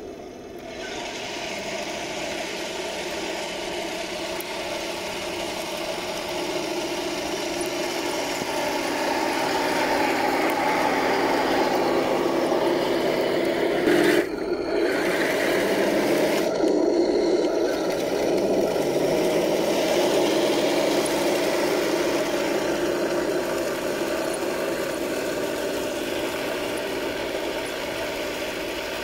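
Heng Long Leopard 2A6 radio-controlled model tank running: a steady engine-like drone with motor whine, building up over the first several seconds. A brief louder knock comes about 14 seconds in.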